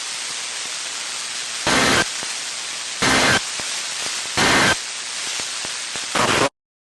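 Emergency Alert System end-of-message data bursts: three short buzzy bursts about 1.3 seconds apart over a steady hiss of radio static. A brief fourth burst comes near the end, and then the sound cuts off abruptly.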